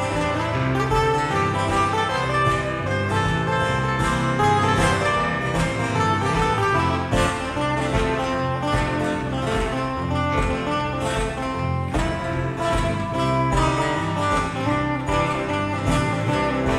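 A small acoustic band playing an instrumental passage of a country-style song: strummed and picked acoustic guitars over a steady bass line, with a plucked lead running through it.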